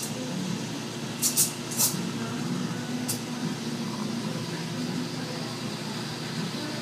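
Café background noise: a steady hum with a low murmur of voices, broken by a few short, sharp high-pitched sounds about a second and a half in and once more near three seconds.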